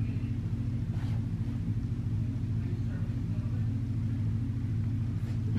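A steady low hum, with a few faint soft taps.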